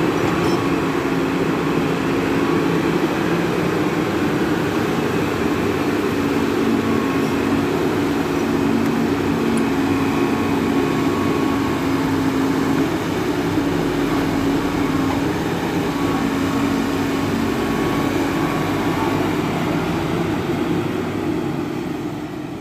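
Hitachi EX200 hydraulic excavator's diesel engine running under working load, a steady drone whose tone shifts as the hydraulics swing the arm and dump the bucket. It begins to fade near the end.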